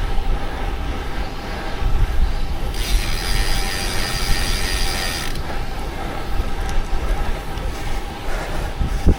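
Road bike's rear freehub ratcheting in a rapid buzz for about two and a half seconds while the rider coasts, starting and stopping abruptly, over steady wind rumble on the action camera's microphone.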